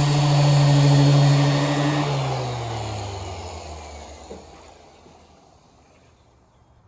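Power sander running steadily, then switched off about two seconds in, its pitch falling as it spins down and fades away.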